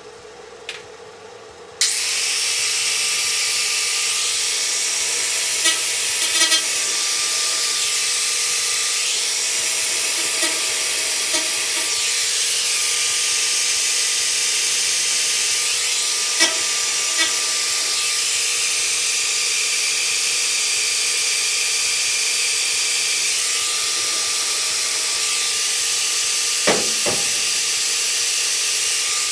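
A power tool working on the truck's metal bodywork starts abruptly about two seconds in and runs steadily with a loud hiss and a steady whine. A few light clicks come over it, and it winds down at the very end.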